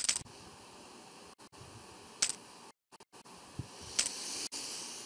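Three short clicks, about two seconds apart, as bets are placed on an online roulette table: the game's chip-placing sound effects or the mouse clicks that place the chips, over a faint hiss.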